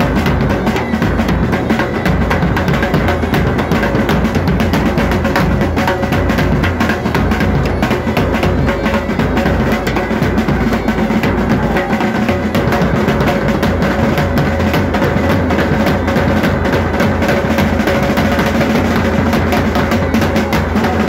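Loud live band music driven by fast, continuous drumming, with a few held instrument notes over the beat.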